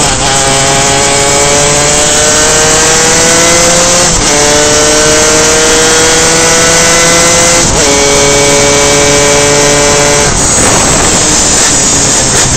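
Reed-valve two-stroke superkart engine pulling hard at full throttle, its pitch climbing, with two sharp drops in pitch for upshifts about four and eight seconds in. About ten seconds in the engine note fades into a rush of wind noise for a couple of seconds, as if the throttle is lifted for a corner.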